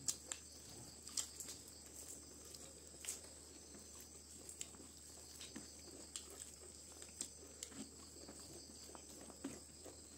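Faint eating sounds: scattered soft clicks and smacks of chewing, and of fingers picking rice and curry off a banana leaf, over a steady low hum.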